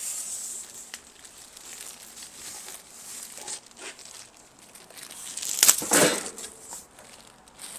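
Plastic wrapping crinkling and styrofoam packing rubbing as a packed pizza oven is lifted out of its cardboard box, with a louder burst of rustling and scraping about six seconds in as it is set down.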